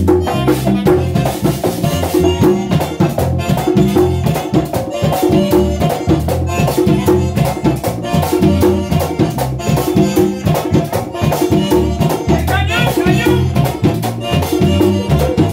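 Merengue típico band playing live: button accordion and saxophone carry the melody over a fast, steady beat of tambora drum, güira scraping and electric bass.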